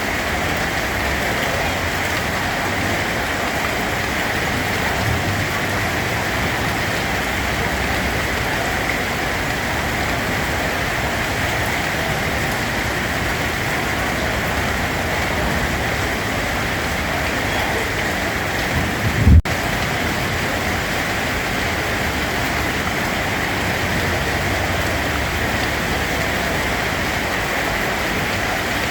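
Steady rain falling, an even hiss of drops on surfaces. A single brief low thump comes about two-thirds of the way through.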